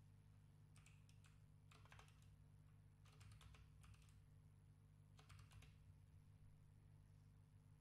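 Faint computer keyboard typing in several short runs of keystrokes, over a low steady hum.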